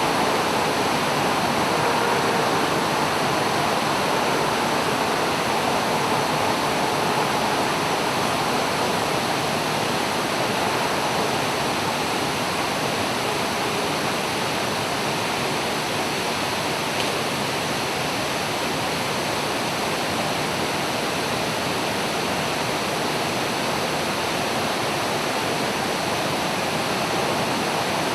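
Oshinkoshin Falls, a waterfall, pouring with a steady, even rush of falling water.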